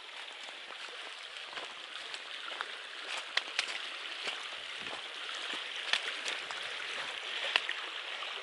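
Creek water running over a shallow riffle, a steady rushing hiss that grows slightly louder, with a few light clicks and crunches scattered through it.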